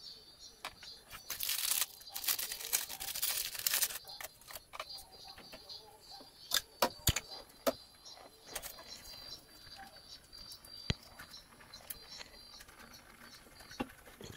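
Light clinks and taps of metal kitchenware around a pot of noodles on a gas stove, including a lid being set on the pot. A rushing hiss starts about a second in and lasts nearly three seconds.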